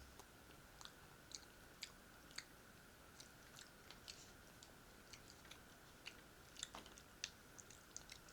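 Faint close-miked chewing: scattered, irregular wet mouth clicks and smacks of someone eating, about two a second, over a faint steady high-pitched hum.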